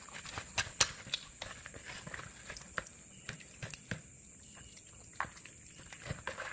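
Wet slapping and irregular taps and knocks as hands rub and turn a slippery catfish against a plastic basin, scrubbing it with lime. A faint steady high whine runs underneath.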